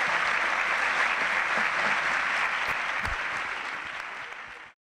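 Audience applauding, a dense, steady clapping that tapers off in the last second or two and then cuts off abruptly.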